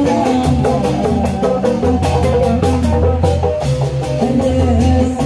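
Sundanese kuda renggong music: an instrumental passage with a bass line, a melody and a steady percussion beat.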